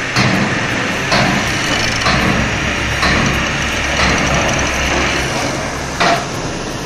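An engine running steadily, with sharp metal knocks roughly once a second over it, one of the loudest about six seconds in.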